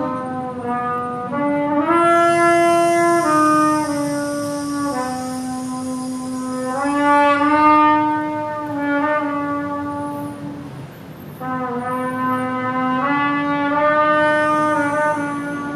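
Solo trumpet playing a slow melody of long held notes that move step by step, with a short break between phrases about two-thirds of the way through.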